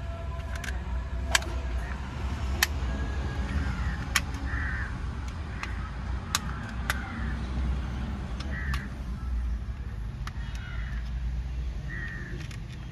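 Scattered sharp plastic clicks and taps, a second or two apart, as the press-fit clips of a Toyota Innova's spiral cable (airbag clock spring) housing are pried open by hand, over a steady low hum.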